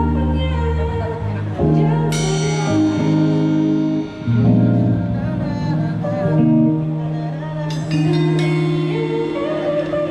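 Live band playing at a sound check: long held chords, with a bright crash that rings on about two seconds in and two more near the end.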